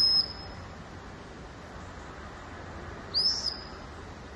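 A high whistle blown in short, loud blasts, one at the very start and another about three seconds in, each a near-steady shrill tone about half a second long. It has the sound of a dog-training whistle.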